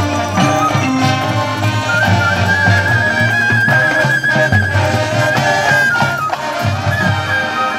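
High school marching band playing a piece: a high melody line, with a trill from about two seconds in, over sustained lower notes from the rest of the band.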